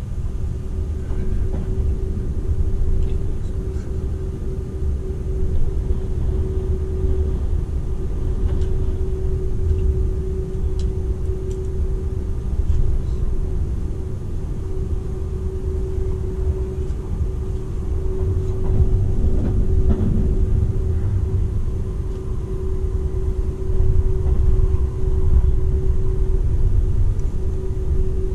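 Running noise inside the cabin of a Seibu 001 series Laview limited express train at speed: a steady low rumble of wheels on rails with a constant droning hum. It grows a little louder in the last few seconds.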